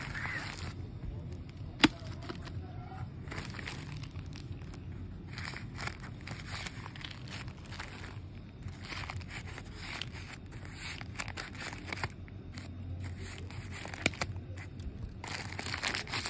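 Plastic courier mailer bag crinkling and rustling as it is handled and cut open with scissors, with scattered short snips and clicks. A single sharp click about two seconds in is the loudest sound.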